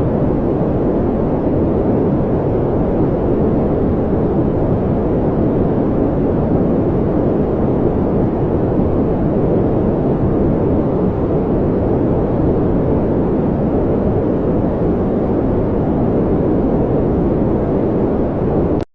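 Brown noise: a steady, deep rushing hiss with its weight in the low range, no tones or rhythm, cutting off at the very end.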